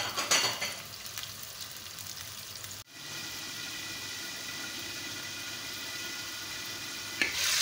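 Chicken pieces frying in hot oil in a karahi, a steady sizzle. A short loud clatter in the first half-second; after a break about three seconds in, the sizzle goes on evenly under a glass lid, with a click near the end.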